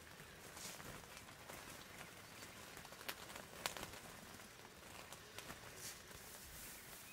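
Near silence: faint outdoor background hiss, with two brief sharp clicks about three seconds in.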